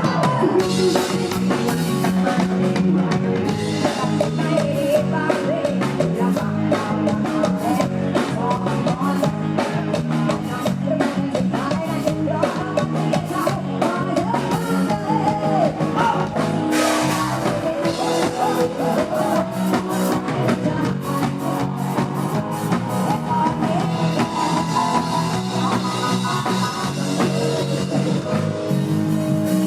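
Live Isan band music: singing over a drum kit and guitar, with steady drum strikes throughout.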